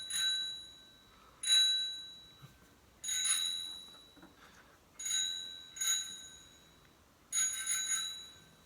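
Bicycle bell rung about half a dozen times, single dings roughly every second and a half, some in quick pairs, each ringing on and fading.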